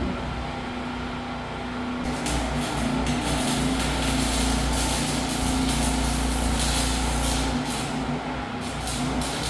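A machine hums steadily. About two seconds in, a harsh crackling hiss of steel being cut or welded starts and runs most of the rest, briefly dropping out and coming back near the end.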